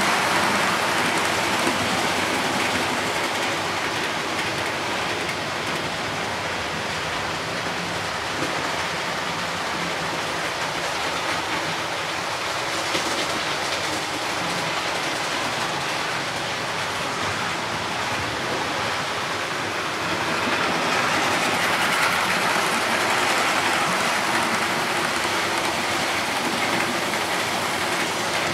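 OO gauge model trains running on the layout's track: a steady rolling rattle of small wheels over the rails mixed with the locomotive motors. It is louder at the start and again from about two-thirds of the way in, as coaches pass close by.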